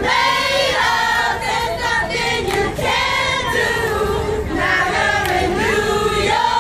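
A crowd singing along together in a loose, loud chorus of many voices, the tune carried by voices alone because the music they dance to plays only in their wireless silent-disco headphones.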